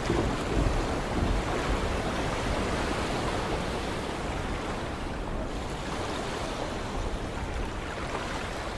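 Sea waves surging and washing, a steady rushing that slowly eases off.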